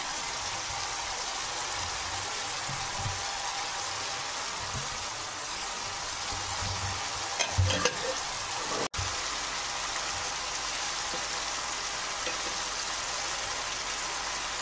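Oily masala gravy sizzling steadily in a frying pan around chicken koftas, an even hiss. A few knocks come about seven and a half seconds in, and the sound drops out for an instant about nine seconds in.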